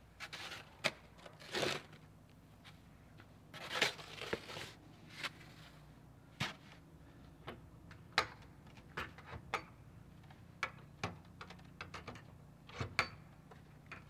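Snow shovel working fresh snow: a few longer scrapes and scoops in the first five seconds, then a run of short crunches and knocks.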